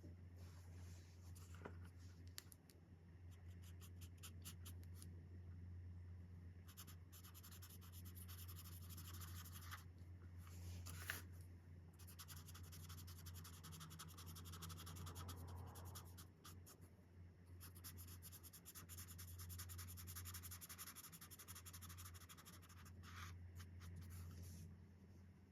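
Chen Rui alcohol marker nib stroking quickly back and forth on colouring-book paper, faint and scratchy, in long runs of rapid strokes with short pauses between them. A single sharp click comes about eleven seconds in, over a steady low hum.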